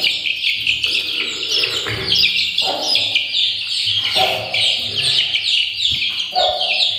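A brood of Aseel chicks, about 20 days old, peeping without pause: many short, falling chirps overlapping one another.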